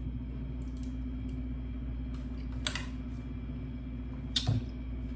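Steady low hum of a quiet room, broken by two brief knocks about two and a half and four and a half seconds in as a screw-capped wine bottle is handled on the table.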